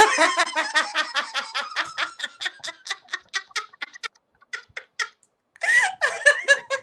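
A person laughing heartily in a long run of quick 'ha-ha' pulses, about five or six a second, that gradually fade out after about five seconds. A few spoken sounds follow near the end.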